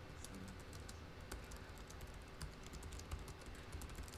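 Typing on a laptop keyboard: quick, irregular key clicks, faint over a low steady room hum.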